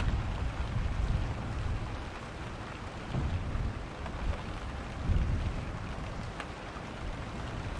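Thunderstorm: steady rain falling, with low rolling thunder rumbling underneath. The thunder swells about three seconds in and again more strongly about five seconds in.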